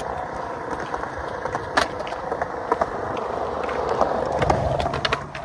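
Skateboard wheels rolling over a concrete skate park surface with a steady rumble, with scattered sharp clicks from the board, the loudest about two seconds in.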